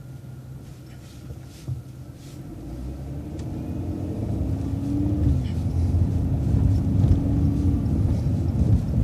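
City transit bus accelerating: the engine and low rumble grow steadily louder from about two seconds in, with a steady engine tone. A light knock comes just before the rise.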